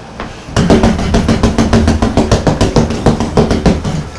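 Rapid flurry of punches landing on a QuietPunch doorway-mounted punching bag, a fast run of thuds several a second. The flurry starts about half a second in and stops just before the end.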